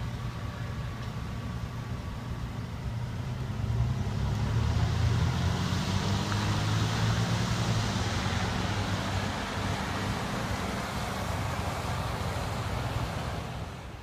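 Car traffic on a snow-covered road: a low engine rumble with a tyre hiss that swells about four seconds in and fades away near the end, like a car driving past on slushy snow.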